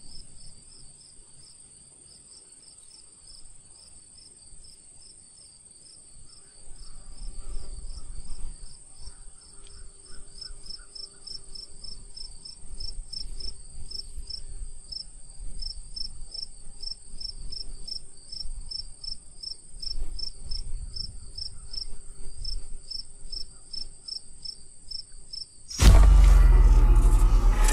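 Insects trilling: a steady high-pitched trill with a second, evenly pulsing chirp just below it. A low rumble joins about a quarter of the way in. Near the end a sudden loud burst of noise cuts in over everything.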